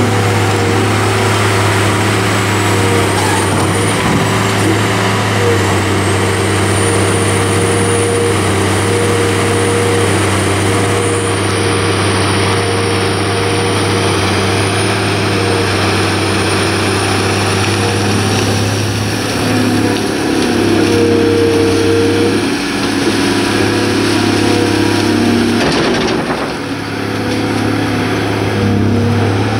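Caterpillar 345B L II hydraulic excavator's diesel engine running steadily under hydraulic load as the machine digs silt and swings its boom, with a thin high whine over the engine.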